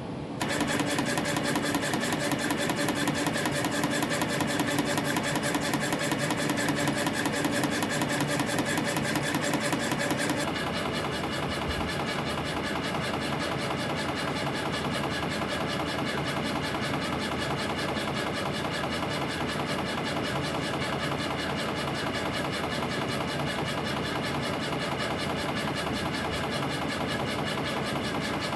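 CNC compression spring coiling machine running at production speed, forming 0.4 mm wire springs at about 300 a minute with a fast, even mechanical clatter. About ten seconds in the sound drops slightly and turns duller, then runs on steadily.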